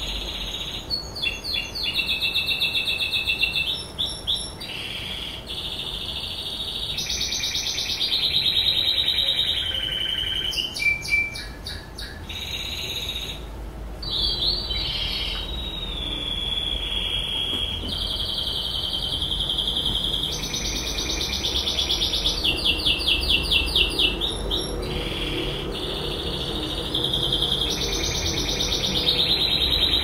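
A white dominant canary sings a long, high-pitched song with hardly a break. Long rolling trills alternate with passages of rapid, choppy repeated notes.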